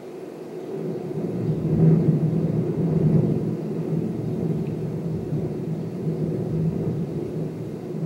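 A low, steady rumble with a faint hum in it, swelling about a second or two in and then holding.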